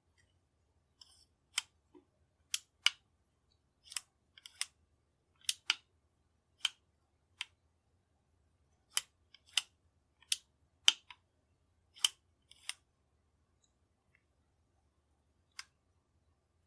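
Model 1895 Nagant revolver being worked by hand: a string of sharp, irregular metal clicks from its ejector rod and from the cylinder being turned to each chamber in turn, with a pause before one last click near the end.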